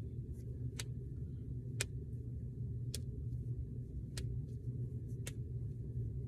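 Finger and knuckle joints cracking: five sharp pops about a second apart, with a few fainter clicks between, over a steady low hum.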